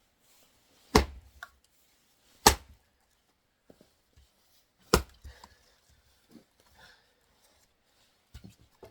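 Three axe blows into a knotty oak log, each a sharp crack with a short low thud, the second about a second and a half after the first and the third about two and a half seconds later. The knot makes the round hard to split.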